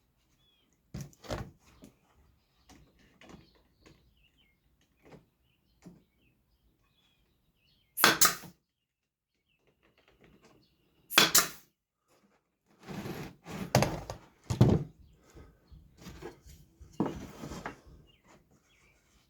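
Pneumatic brad nailer firing into small wooden pieces: two loud sharp shots about three seconds apart, then a run of smaller knocks and clatter of wood being handled and nailed.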